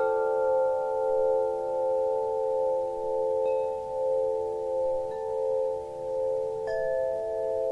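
Chime tones ringing on as an outro jingle: several bell-like notes held together, swelling and fading slowly, with another note struck near the end.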